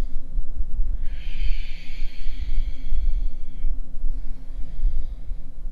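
A person breathing out hard in one long audible exhale, a hiss lasting about two and a half seconds, during a strenuous yoga movement. A low rumble sits underneath it.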